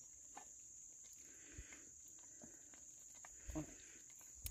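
Near silence: a steady high-pitched insect trill, with a faint short call about three and a half seconds in.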